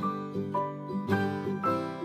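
Background music: a light plucked-string tune, notes and chords struck about twice a second and ringing out between strikes.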